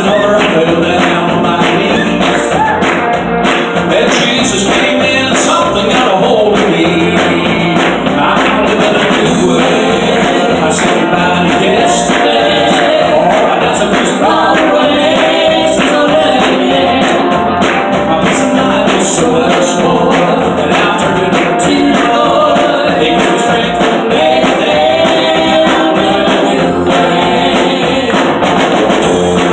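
Live gospel-style Christian band playing a song with singing, a tambourine shaking along.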